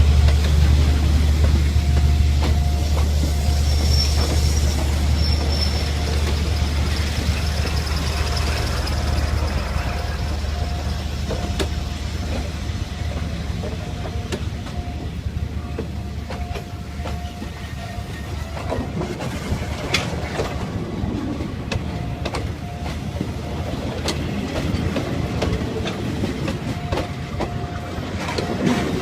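Passenger train rolling past, a deep rumble that slowly fades as it goes by, with wheels clicking over the rail joints.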